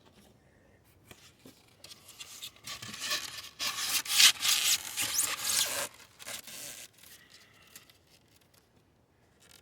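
Rubbing and scraping of hive parts being handled as a beehive is closed up, building to a few seconds of loud, rough scraping in the middle and then tapering off into a few scattered scrapes.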